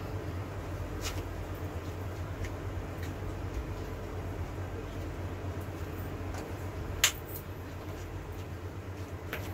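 Steady low rumble of a gas burner heating an empty wok, with a few faint clicks and one sharp tick about seven seconds in.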